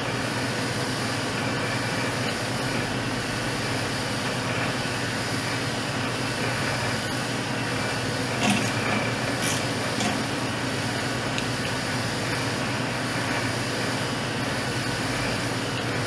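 Steady hum of running refrigeration machinery, even and unchanging, with a faint high whine. A few light metallic clicks from tool handling come about halfway through.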